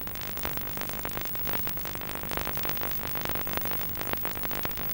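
Background synthesizer music.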